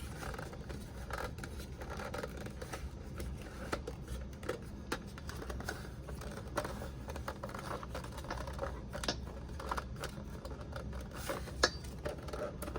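Irregular light plastic clicking and rattling as the cord is pulled out of the power strip tower's cord reel and the unit is handled, with one sharper click near the end.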